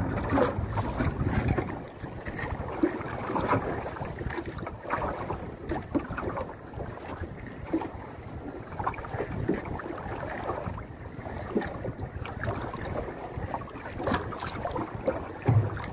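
Sea water lapping and splashing irregularly against the hull of a small outrigger fishing boat, with wind rumbling on the microphone.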